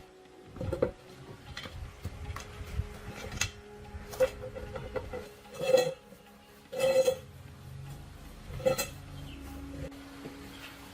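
Metal tools and parts clinking and knocking together as they are handled, about seven separate irregular strikes, several with a brief ringing tone.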